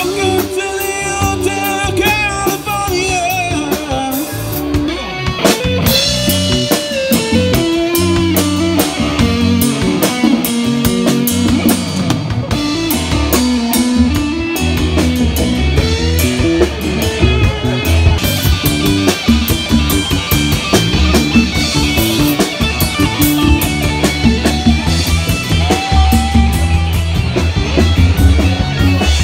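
Rock band playing: drum kit, electric guitar and bass, with a singing voice over them.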